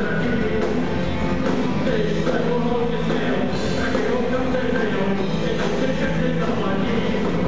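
A live rock band playing: electric guitars, bass guitar and drums, with a melody line over them, at a steady level.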